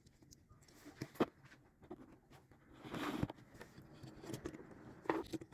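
Faint handling noises: a few sharp clicks and taps, with a short rustle about three seconds in, as small items and their packaging are handled.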